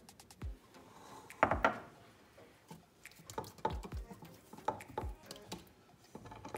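Hands turning and patting oiled msemen dough in a glass bowl: a series of soft slaps and thuds, about five or six, the loudest about a second and a half in.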